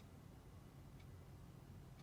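Near silence: room tone with a low steady hum and one faint tick about a second in.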